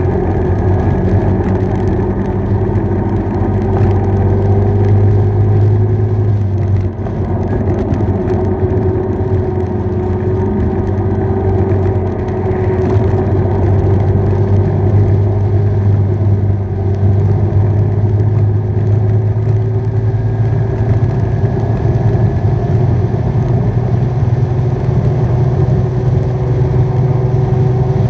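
A motorbike engine runs steadily at cruising speed, heard from the rider's seat over wind and road noise, with a short easing off about seven seconds in.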